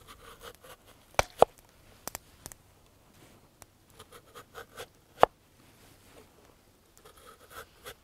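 Kitchen knife slicing a raw lotus root into thin rounds on a wooden board. The root cuts crisply, and the blade taps sharply on the board with each slice, at uneven intervals, with softer scraping in between.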